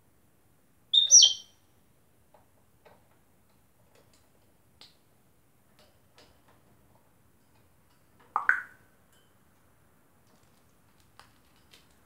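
African grey parrot giving two short calls: a high-pitched whistle with a quick sweep about a second in, and a lower, shorter call around eight seconds in. Faint scattered taps and clicks come between them.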